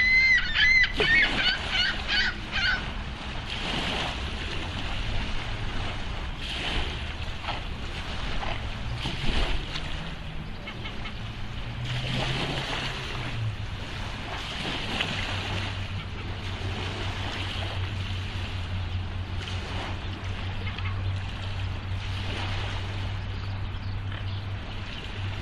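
Swans giving a quick run of wavering, honking calls for about the first three seconds. After that, steady lapping water and wind, with a low hum from about halfway through.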